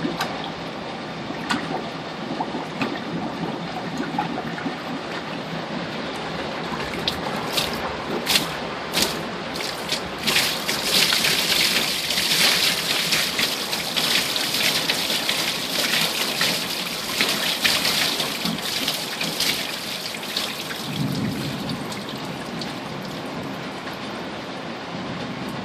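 Water surging and gurgling in a toilet bowl as sewage backs up into it, typical of a sewer overwhelmed by storm water. A few sharp splashes come around a third of the way in. The sound is loudest in the middle, as the bowl fills nearly to the rim, then eases as the water drains back down.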